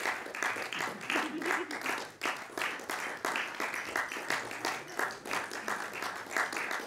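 Audience applauding: many hands clapping, with individual claps standing out close by.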